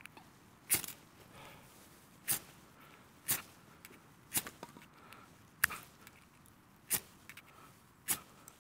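Flint and steel struck again and again to throw sparks onto tinder: seven short, sharp scraping strikes about a second apart. The tinder has not yet caught.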